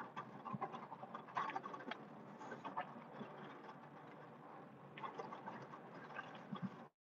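Pickup truck plowing snow with a Western WideOut XL plow, heard from inside the cab: a fairly quiet, steady scraping noise of the blade and tyres through snow, with irregular crackles and clicks.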